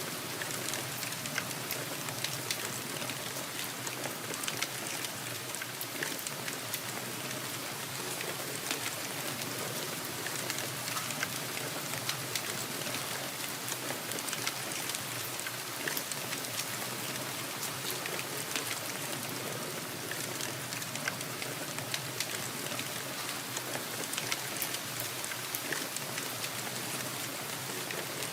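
Steady rain falling: an even wash of noise sprinkled with many small, sharp drop hits.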